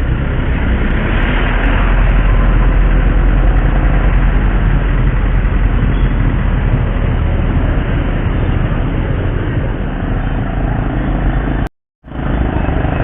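Motorcycle on the move in city traffic: steady engine, road and wind rumble, which cuts out completely for a split second near the end.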